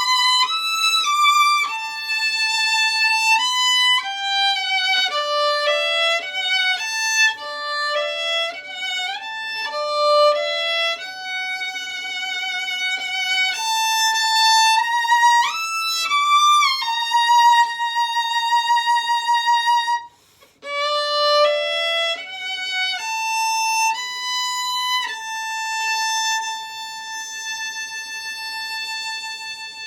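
Violin playing a slow melody one note at a time, with vibrato on the held notes. It breaks off briefly about two-thirds through, then ends on a long held note that fades away.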